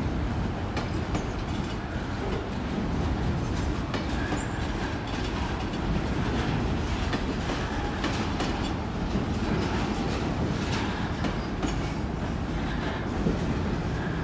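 Double-stack container well cars of a freight train rolling past: a steady rumble of steel wheels on rail, with clicks as the wheels cross rail joints.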